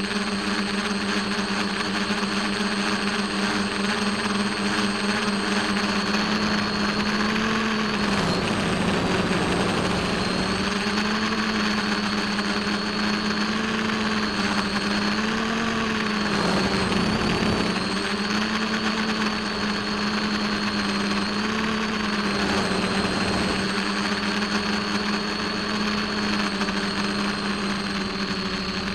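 Electric motor and propeller of an RC FPV model aircraft, heard close from its onboard camera: a steady whine whose pitch wavers with the throttle, dipping briefly about eight seconds in and again around seventeen seconds.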